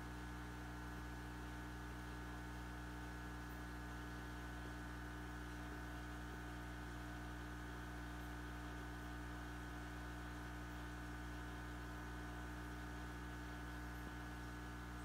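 Steady hum of running aquarium equipment such as filter pumps, several constant tones over a faint hiss, unchanging throughout.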